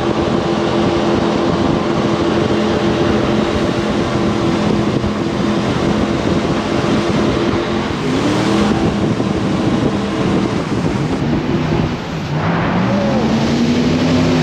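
Jet boat engine running at speed over the rush of wind and water. Its pitch swings down and back up about eight seconds in, and again near the end.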